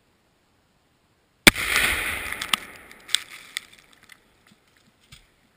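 A Tannerite exploding-target charge going off close by with one sharp, loud bang about a second and a half in, its noise dying away over a second or so. A few sharp ticks and a dull thud follow as debris comes down.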